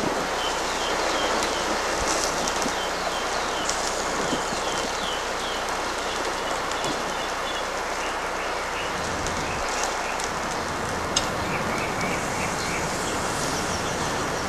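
Flames burning through a windshield wiper motor assembly: a steady rushing hiss with scattered crackles. A small bird chirps repeatedly in the background, stopping about halfway and starting again near the end.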